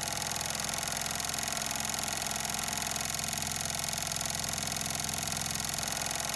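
Wilcox and Gibbs straw braid sewing machine running steadily at speed, stitching very fine 3.5 mm straw braid with an even, rapid chatter.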